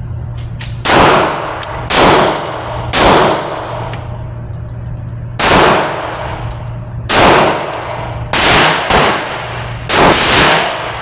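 About nine 9mm pistol shots from a Hi-Point C9 firing 124-grain rounds, spaced roughly a second apart with a longer pause in the middle, each followed by a short echo. The pistol cycles without a jam.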